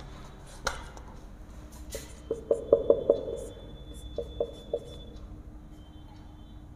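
Marker pen writing on a whiteboard: a quick run of short taps and strokes about two and a half seconds in, then three lighter taps a little later.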